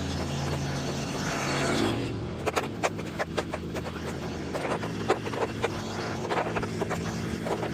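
Electric snow shovel running with a steady motor hum; from about two seconds in, a quick irregular run of clicks and scrapes as the paddle bites into snow and against the pavement.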